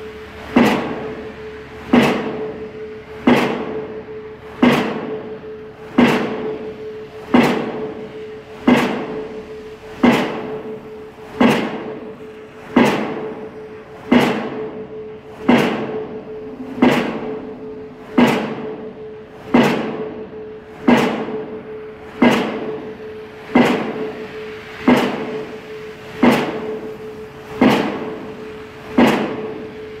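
Diesel impact pile hammer driving a steel pile: a heavy blow about every 1.4 seconds, each ringing and dying away before the next, over a steady hum.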